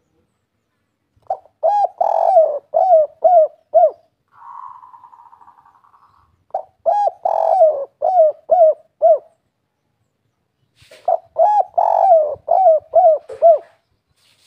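Spotted dove (tekukur/derkuku) singing the 'kuk 3' coo: three cooing phrases of about six notes each, a few seconds apart. Between the first two phrases comes a fainter buzzing rattle that lasts about two seconds and fades out.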